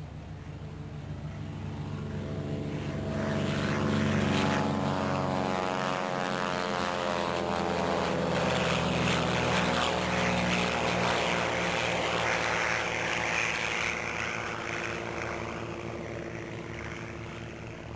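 A propeller aircraft flying past: its engine sound swells over about four seconds, drops in pitch as it goes by, then fades away.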